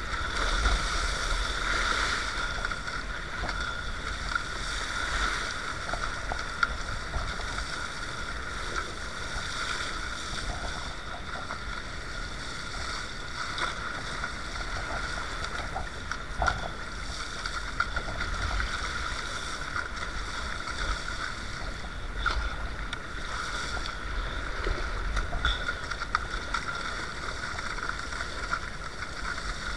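Wind buffeting and water splashing around a sea kayak paddled through choppy water: a low rumble and a steady hiss, broken by scattered short splashes.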